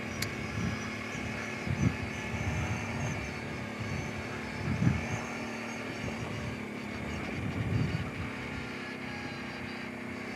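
Kawasaki Brute Force 750 ATV's V-twin engine running steadily while riding a rocky trail, with brief louder swells about two, five and eight seconds in.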